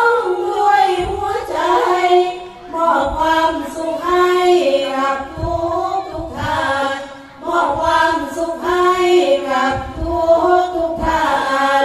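Women's voices chanting sorapanya, the Isan Thai Buddhist sung verse, in long ornamented phrases with sliding pitch, broken by short breaths about every few seconds.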